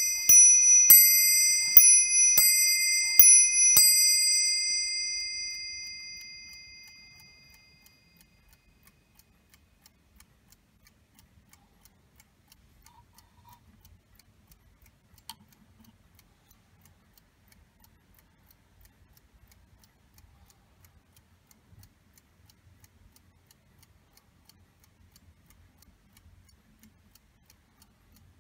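Warmink 8-day clock movement striking its brass bell: a handful of ringing strokes in the first four seconds, the ring dying away over the next few. Then the movement ticking faintly, with one louder click about fifteen seconds in.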